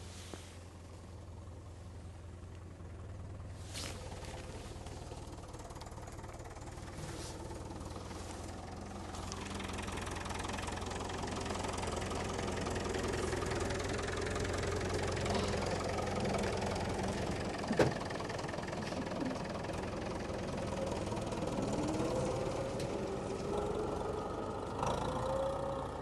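Diesel farm tractor engine running close by, growing louder as it nears, with one sharp knock about two-thirds of the way through. Near the end its engine note rises as it pulls away.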